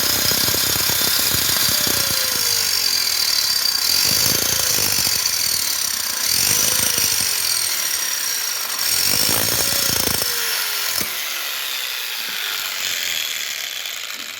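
Electric grinder with a cutting disc cutting through the metal base of a washing-machine spinner motor: a steady high whine over dense grating noise. The motor's pitch sags and recovers several times as the disc is pressed into the cut. The cutting grows lighter after about twelve seconds and the tool fades out near the end.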